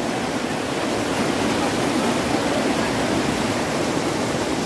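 Fast river water rushing over rocks close by: a steady, even rush of white water with no breaks.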